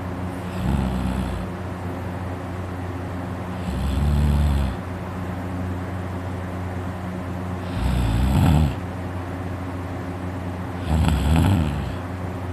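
A sleeping man snoring loudly, four snores about every three and a half seconds, each about a second long, which he puts down to his uvula vibrating. A steady hum runs underneath.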